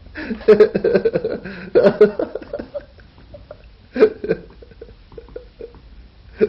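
A man chuckling and laughing with breathy, hiccup-like vocal sounds. These are loud in the first two and a half seconds, then quieter, with short sharp sounds about four seconds in and again near the end.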